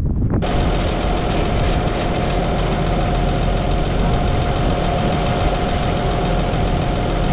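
Caterpillar D6N bulldozer's diesel engine running steadily, with a steady whine over the engine noise.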